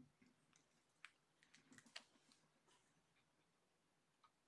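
Faint scratchy ticks of a felt-tip marker writing on a whiteboard, a cluster of short strokes between about one and two and a half seconds in.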